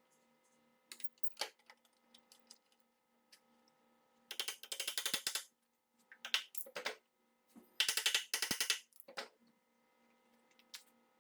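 Two bursts of rapid, even ratcheting clicks, each about a second long, from a hand tool's ratchet mechanism, with a few single light knocks and taps between them.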